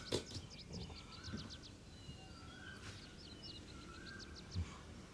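Faint bird calls: quick high chirps and a short warbling call that repeats every second or so, over quiet background ambience. A click sounds just after the start and a soft thud near the end.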